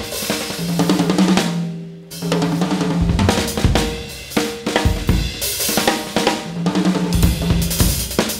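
Drum kit played hard in a jazz big band setting: snare, bass drum, hi-hat and cymbal strikes in dense fills, with a brief lull about two seconds in before the playing picks up again.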